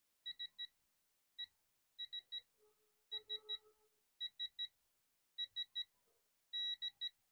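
Digital torque adapter on a ratchet beeping as a lug nut is torqued to about 100 ft-lb: quick triplets of short high beeps roughly once a second, with one longer beep near the end.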